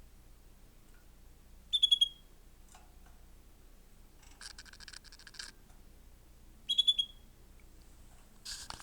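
Pet canary chirping: two short trilled chirps, each a quick run of high notes, about two and seven seconds in. A fainter buzzy rattle sounds between them.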